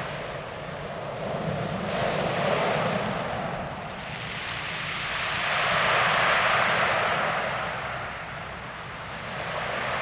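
Small waves breaking and washing up a shingle beach, the surf noise swelling and fading twice.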